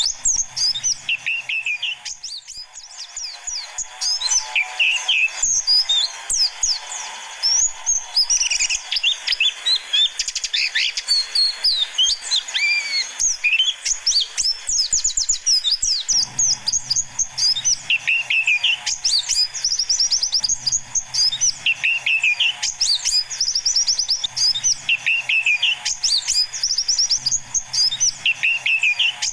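White-eyes (pleci) chirping and twittering in high, fast trills, a lure call of young forest birds. In the second half one call phrase repeats about every two seconds over a faint low hum.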